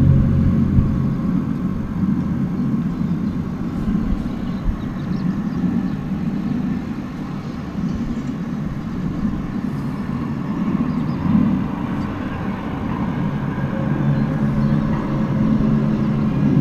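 A steady, low droning rumble heard through an open window. It dips a little in the middle and swells again near the end. It is the unexplained outdoor 'strange noise' the recorder says has been recurring every ten minutes to half an hour.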